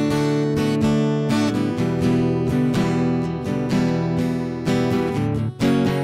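Instrumental passage with no singing: steel-string acoustic guitar strumming chords over an electric bass line, with a brief break in the strumming just before the end.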